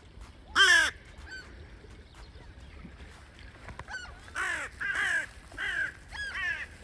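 Crow calling: one loud harsh caw about half a second in, then a run of four caws in quick succession near the end.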